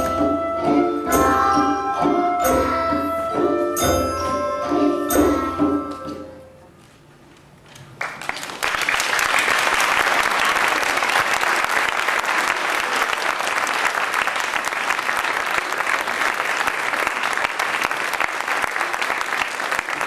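A children's percussion group plays a tune on xylophones and glockenspiels over deep, regular drum beats. The music ends about six seconds in. After a short pause, the audience applauds steadily.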